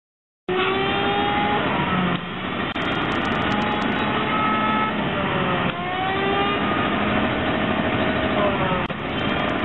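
A pressure washer and a 6.5-horsepower, 16-gallon shop vac running together: a loud steady mechanical din that starts abruptly half a second in, with several whining tones sliding up and down, and a brief rapid ticking about three seconds in.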